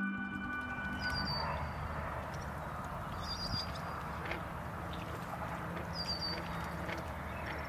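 Outdoor ambience: a steady rushing noise with short high bird chirps every two or three seconds, as sustained music tones fade out in the first second.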